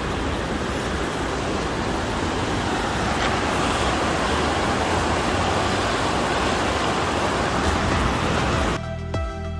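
Steady rush of river rapids tumbling over rocks. Near the end it cuts off abruptly and electronic background music with a steady beat begins.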